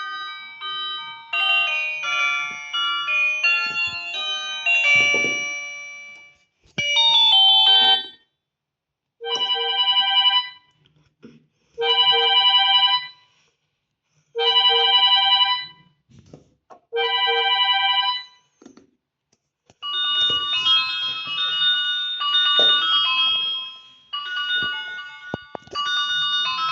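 Built-in ringtones and alarm tones of a Nomi i2830 mobile phone playing one after another. First a quick electronic keyboard-like melody, then a brief chime, then one chime pattern repeated four times about every two and a half seconds, then two more busy melodies near the end.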